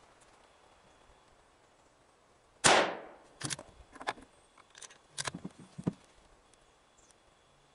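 A single shot from a Savage 12 LRP bolt-action rifle in .260 Remington about two and a half seconds in, with a sharp crack and a fading echo. It is followed by a string of short metallic clicks and clacks as the bolt is worked to eject the case and chamber the next round.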